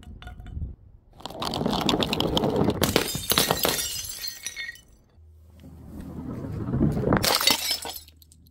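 Glass bottles shattering: a long crash with tinkling shards from about a second in, fading out near five seconds, then a second smash that builds and ends in a sharp crack near the end.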